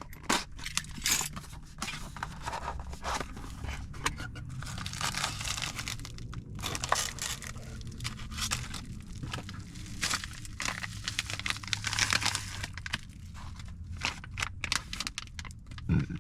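Packaging being torn open and handled while a fuel pump is unboxed: irregular tearing, crinkling and scraping of cardboard and wrapping, over a low steady hum.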